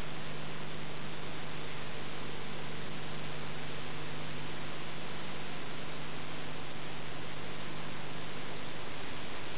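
Steady hiss with a low electrical hum underneath, unchanging throughout: the noise floor of an old film transfer with no other sound on the track.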